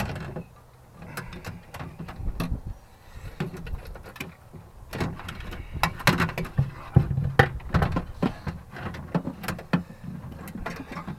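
Irregular clicks, knocks and light rattling of a 2002 Mercury Mountaineer's cable-driven window regulator assembly being handled and moved around, with metal and plastic parts knocking together.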